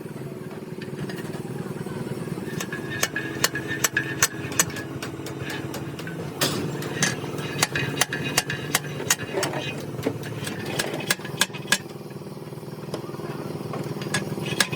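Repeated sharp metallic taps and knocks, irregular and often in quick runs, over a steady low engine hum.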